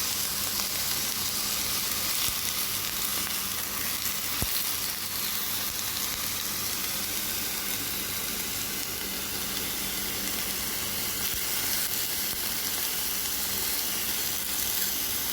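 Strips of chicken breast sizzling steadily in olive oil in a pan as they fry, with a few faint clicks.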